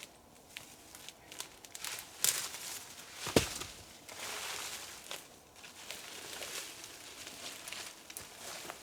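Rustling and crinkling handling noises with scattered small clicks, as sticks and paper are laid for a small campfire. One sharp knock comes about three and a half seconds in.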